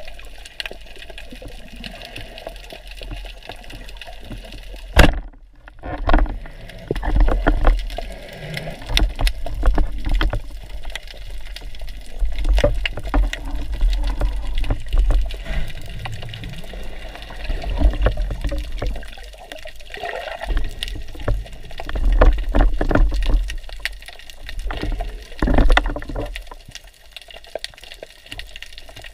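Water sloshing and gurgling in uneven surges, with low rumbles. There is a sharp knock about five seconds in, followed by a brief hush.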